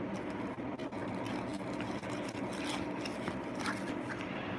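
A steady mechanical hum, with faint rustles and small ticks as wrapped packets are handled in a cardboard box.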